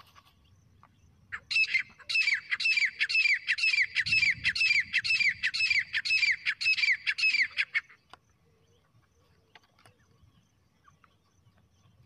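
Teetar (francolin) calling, a recorded lure call: a fast run of loud, sharp, repeated notes, about three a second, each falling slightly in pitch. It starts after about a second and a half and stops suddenly about two-thirds of the way through.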